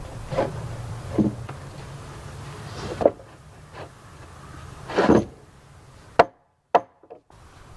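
Irregular wooden knocks and thuds as a hewn log floor joist is worked into its pocket in the sill log, the loudest about five seconds in, then two short sharp knocks near the end.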